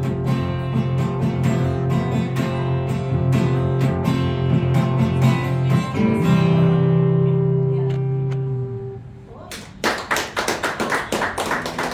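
Steel-string acoustic guitar playing the closing bars of a song, ending on a final chord that rings out for about three seconds and fades away. A few people start clapping near the end.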